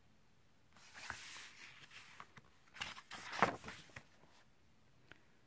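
A picture-book page being turned by hand: paper rustling and sliding for about three seconds, followed by a few light clicks near the end.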